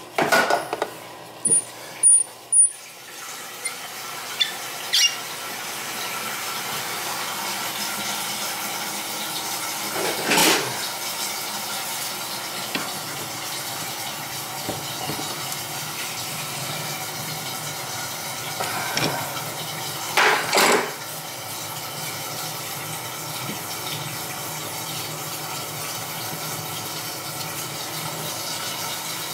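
A few sharp clicks and knocks, then a toilet tank refilling with water through its fill valve: a steady hiss of running water that builds up a few seconds in and keeps on, broken by a couple of brief knocks.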